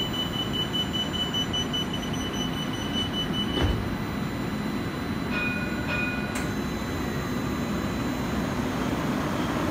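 A CAF Urbos tram stands at the platform with the steady hum of its equipment. A rapid, high-pitched warning beeping runs for the first few seconds and ends with a thump about three and a half seconds in. A short two-tone chime sounds around five to six seconds in and ends in a click.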